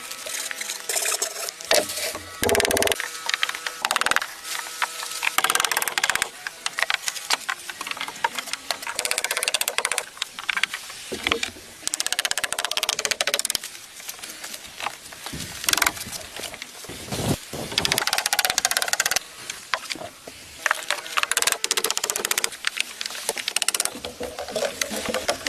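Wood being worked by hand: a run of scraping and knocking sounds that change every second or two.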